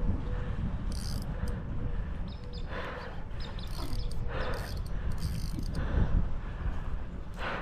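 Spinning fishing reel clicking and ratcheting in several short bursts while line is worked against a hooked tarpon, over a low wind rumble.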